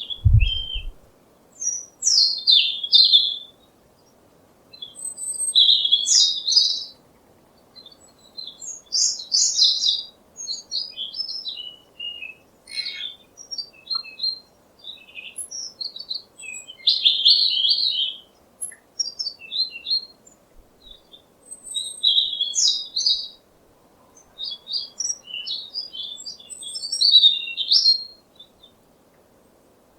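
A songbird singing: short phrases of quick, high chirps and trills, one every couple of seconds with brief pauses between, over a faint steady background hiss. A few low thuds come right at the start.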